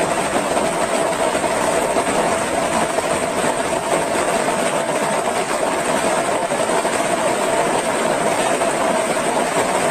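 Fast-flowing floodwater rushing past in a steady, loud, unbroken roar of water noise.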